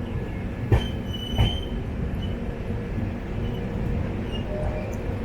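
Passenger train coach rolling along the track with a steady rumble, two sharp wheel clacks over rail joints about a second in, half a second apart, and a brief high wheel squeal.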